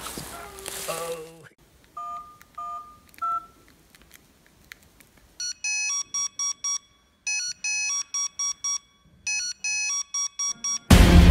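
Three short touch-tone dialing beeps, the third one higher, followed by a Swissphone Index pager's alarm: a rapid melody of high electronic beeps repeating in several bursts. A brief man's voice comes before the beeps.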